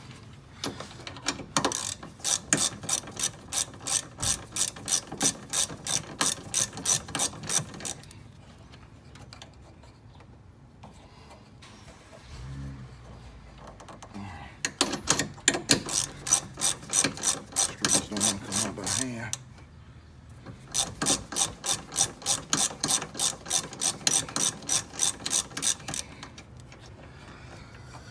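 Hand socket ratchet clicking in quick, even strokes, about three to four clicks a second. It comes in three runs of several seconds each, with short pauses between.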